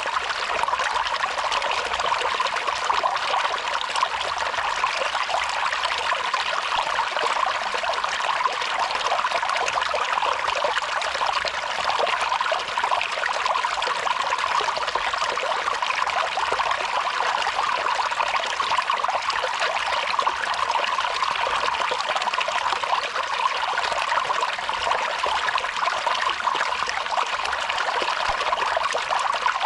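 Water dripping off a canyon cliff as a thin waterfall, a steady dense patter and splash of drops.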